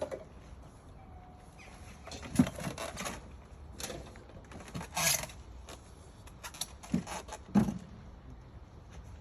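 Handling noise while unpacking a box: a few scattered knocks and thumps, with a brief scraping rustle about five seconds in.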